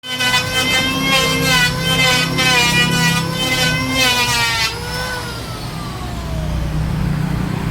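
Electric woodworking power tool whining under load, its pitch wavering and dipping as it cuts. About four and a half seconds in it is switched off and winds down in a falling whine, while a low hum carries on.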